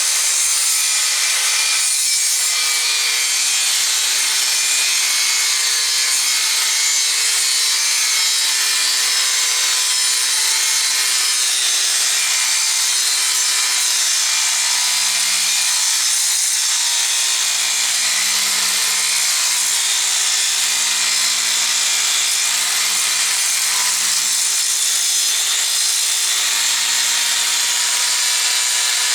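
Angle grinder with a 4.5-inch diamond masonry blade cutting lengthwise through the greasy paper insulation of scrap copper cable. It runs steadily and loud, its pitch wavering a little as the blade is pushed along the cut.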